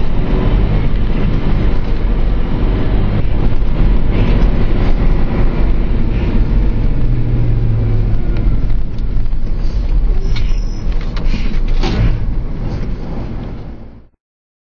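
Fire engine's engine and road noise heard from inside the cab while driving. The sound fades and cuts off to silence near the end.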